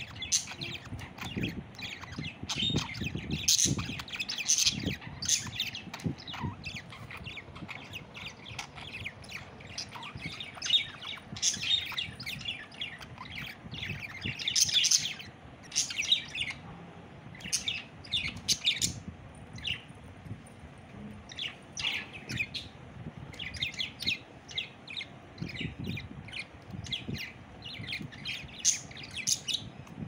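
Blue budgerigar chirping and chattering in quick runs of short, high calls with brief pauses between runs. A few soft low thumps sound in the first few seconds.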